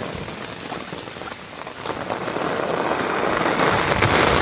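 Heavy rain pouring down in a thunderstorm downpour, growing louder about two seconds in.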